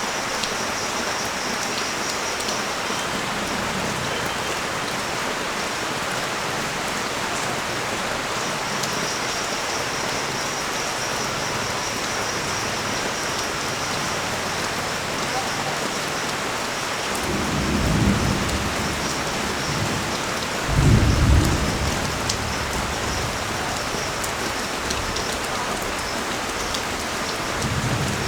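Heavy rain pouring steadily onto a street. A little past halfway come two low rumbles, the second louder and more sudden.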